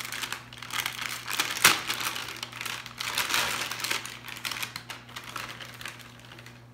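Plastic cake-mix bag crinkling and rustling as it is shaken and squeezed to empty the powder into a mixing bowl, with one sharp click a little under two seconds in.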